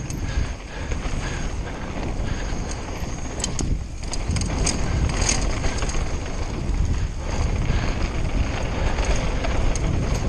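A Conway WME mountain bike descending a rough downhill trail at speed: steady tyre and suspension rumble with wind on the microphone, and a few sharp clicks and knocks from the chain and frame over bumps.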